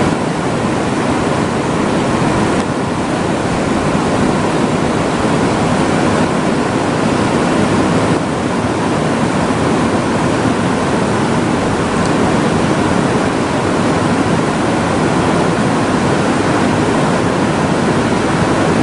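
Loud, steady rush of a fast-flowing river current.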